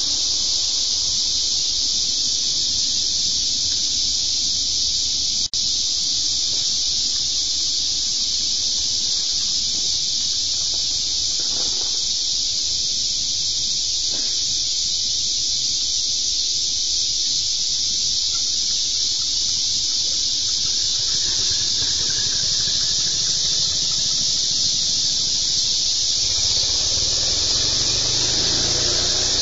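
A steady, high-pitched hiss of a late-summer evening insect chorus runs without a break. A passing car's low rumble builds near the end.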